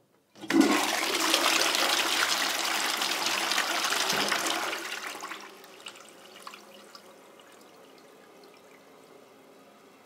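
Toilet flushing: a loud rush of water starts about half a second in and fades out over five to six seconds, leaving a faint steady hiss and trickle.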